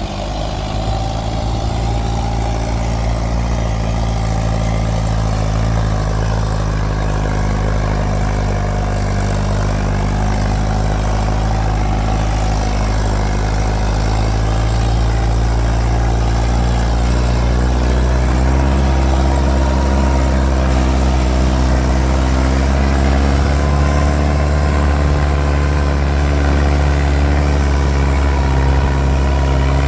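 Mahindra 585 tractor's diesel engine working under load, hauling a fully loaded brick trolley up a slope. It runs steadily, its pitch rising slightly about two-thirds of the way through.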